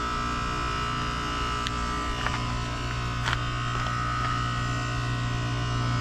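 Goodman GSZ14 heat pump outdoor unit humming steadily during a defrost cycle, with a low electrical hum and several steady higher tones. A few faint ticks come about two to three seconds in.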